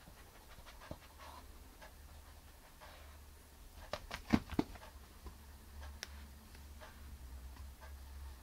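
A Chihuahua sniffing at a fleece blanket, faint snuffles and soft clicks, then a quick cluster of three or four sharp knocks about four seconds in as it passes close to the microphone.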